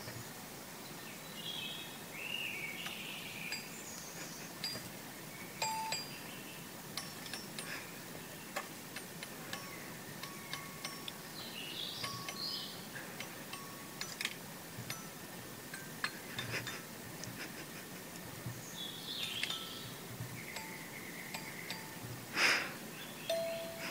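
A hen pheasant pecking at the bars of a toy xylophone, giving irregular clicks and short ringing single notes, with one louder knock near the end.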